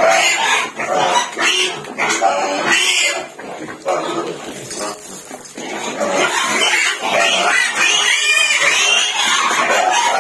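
Farm animals calling over and over in short, loud cries, with a higher call that rises and falls about eight seconds in.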